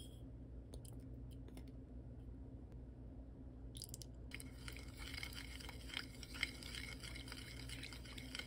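Wooden spoon stirring a soy-sauce seasoning in a glass bowl: a wet, squelching mixing sound with small taps of the spoon against the glass, starting about halfway through. Before that there are only a few faint ticks.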